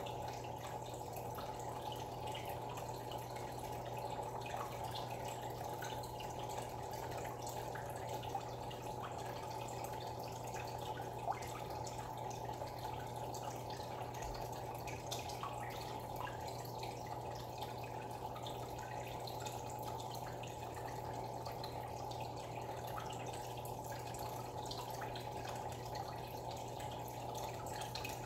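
Aquarium water bubbling and trickling steadily from air bubbles and filter flow, with scattered small drips and a steady low hum underneath.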